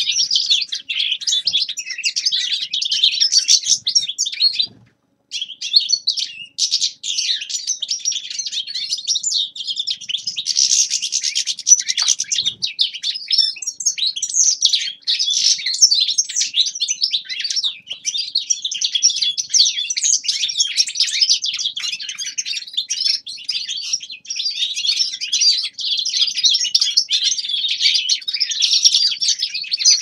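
Common linnet singing a long, continuous twittering warm-up song, with one short break about five seconds in.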